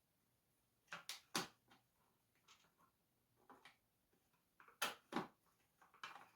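Faint clicks and knocks of a screwdriver and vacuum cleaner parts being handled while screws are taken out: two about a second in, two more near five seconds, and a quick cluster at the end.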